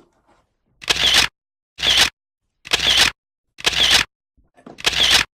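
Camera shutter clicking five times, about once a second, as a run of photos is taken for a thumbnail.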